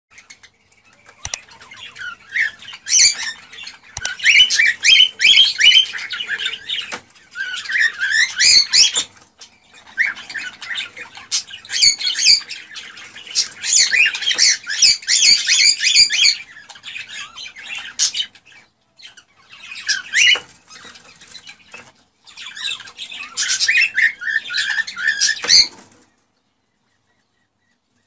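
Cockatiels chirping and squawking in bouts of rapid, high warbling calls with short pauses between them. The calls stop about two seconds before the end.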